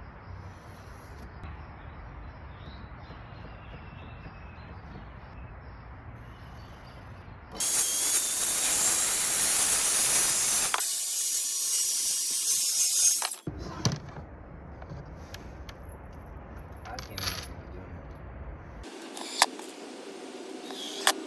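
A loud, steady hiss of noise starts about eight seconds in, lasts about six seconds and cuts off abruptly, over a low background; a few sharp clicks and knocks follow.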